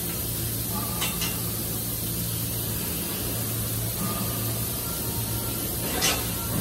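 Steady hum and hiss of a steel fabrication shop, with a few sharp metallic knocks: two close together about a second in, and a louder one near the end. Some knocks are followed by a brief ringing.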